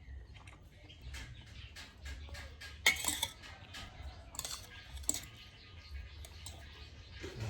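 Spoon clinking and scraping on a plate while eating: a string of light clicks, with a sharper, louder clink about three seconds in.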